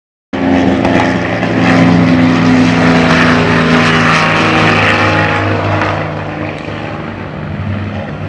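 Propeller airplane engine droning loudly with a steady pitch. It cuts in abruptly and eases off after about six seconds.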